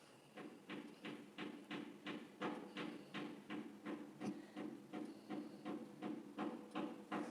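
A person making quick, rhythmic breaths through the nose, about three a second, while trying to bring on a sneeze.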